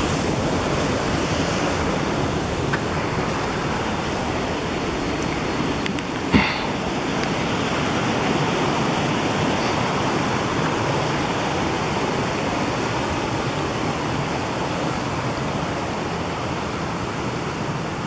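Steady rushing of a waterfall, an even continuous roar of falling water. A brief thump about six seconds in.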